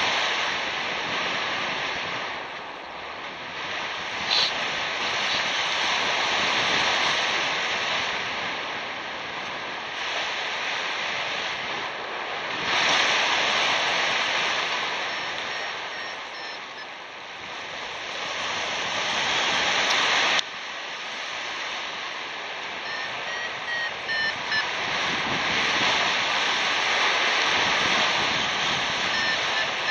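Wind rushing over the microphone of a paraglider in free flight, swelling and fading. Near the end, a flight variometer starts beeping in short repeated tones, the signal that the glider is climbing in lift.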